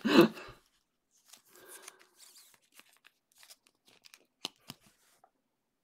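Faint plastic rustling and small clicks of a sleeved trading card being slid into a rigid plastic toploader.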